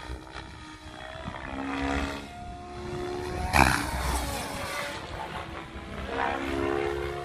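Electric 3D RC helicopter with an Egodrift motor flying aerobatics: rotor blades chopping and the motor whine rising and falling in pitch as it manoeuvres. About three and a half seconds in there is a sudden loud rush of blade noise.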